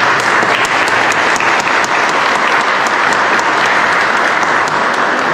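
An audience applauding, many hands clapping steadily together.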